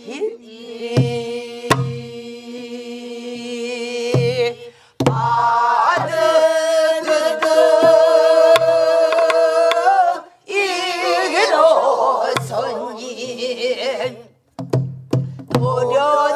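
A woman singing pansori, holding long notes with vibrato and then bending the pitch in ornamented phrases. A buk barrel drum accompanies her with low thuds at slow, uneven intervals and occasional sharp clicks of the stick.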